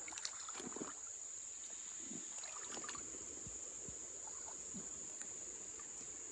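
Steady high-pitched insect chorus from the summer trees, with faint splashing and trickling of shallow river water as someone wades.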